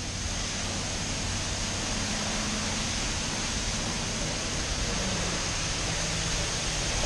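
High-pressure car wash wand spraying water onto a car: a steady, even hiss of spray with a faint low hum underneath.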